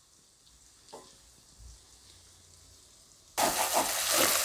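Chopped onion and capsicum sizzling in hot oil in a kadai while a spatula stirs them; the sizzle starts suddenly about three and a half seconds in, after near quiet.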